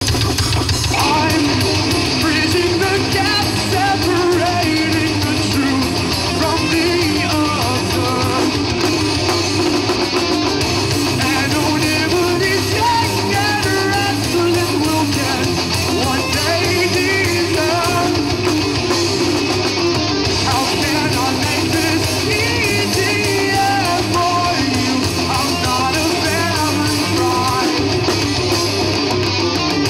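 Rock band playing live, with electric guitars and singing, loud and continuous.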